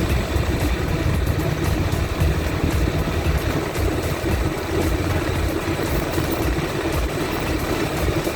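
Honda NC700 DCT's parallel-twin engine running steadily while the motorcycle is ridden, a continuous drone mixed with road noise.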